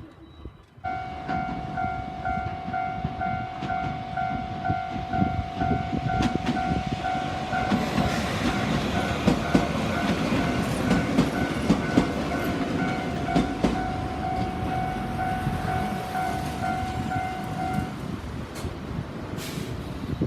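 Japanese railway level-crossing warning bell ringing in a steady, repeating electronic ding, about two strikes a second; it starts about a second in and stops near the end. From about eight seconds in, a train passes over the crossing with rumbling and wheel clatter.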